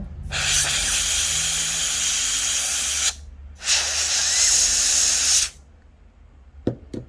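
Two bursts of canned air from an air duster blown into a laptop cooling fan, the first about three seconds long and the second about two, spinning the fan to test whether it still rubs on its housing. Two light clicks follow near the end.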